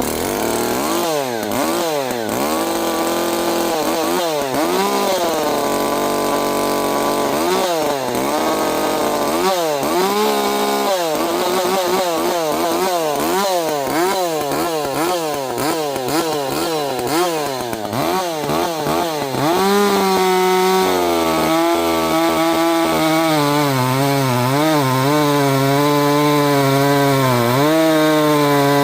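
Ported Echo CS-590 two-stroke chainsaw running at high revs, cutting hard maple. Its pitch swings up and down over and over for the first two-thirds, then settles about 20 seconds in to a steadier, slightly louder note under load with small dips.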